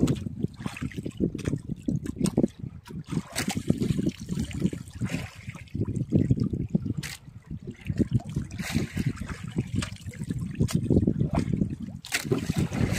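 Sea water sloshing and lapping against a small fishing boat's hull in uneven surges, with scattered sharp knocks.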